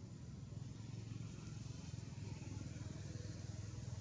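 A motor vehicle's engine running with a low, steady rumble, a little louder from about half a second in.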